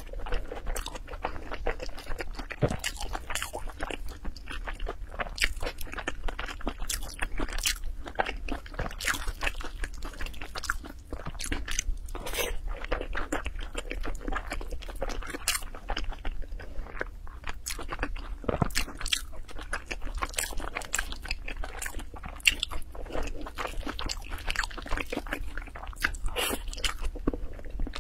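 Close-miked eating: a person chewing a mouthful of sticky yellow grain and meat, with a dense, irregular patter of small wet mouth clicks and smacks.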